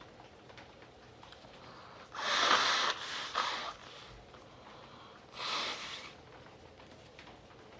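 A man blowing his nose hard twice: a longer blow about two seconds in, then a shorter one about five seconds in.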